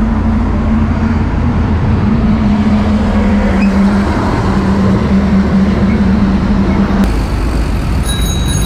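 Road traffic running alongside, heard from a moving bicycle over a heavy low rumble. A steady low engine drone runs until it cuts off suddenly about seven seconds in, and a few thin high tones sound near the end.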